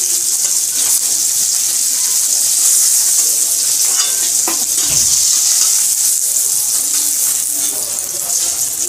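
Climbing perch (koi fish) frying in hot mustard oil in a kadai, a steady loud sizzle. Around the middle a few knocks of the metal spatula against the pan are heard as the fried fish are lifted out.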